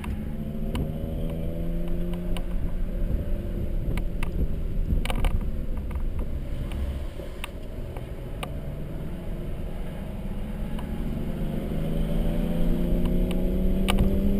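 Mercedes-Benz C300's engine running under load on track over steady road noise. Its pitch eases off in the first few seconds, then climbs steadily over the last few seconds as the car accelerates, with a few sharp clicks.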